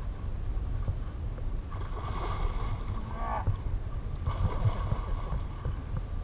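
A large hooked fish splashing and thrashing at the pond surface as it is scooped into a landing net, in two spells of splashing, over a steady low rumble.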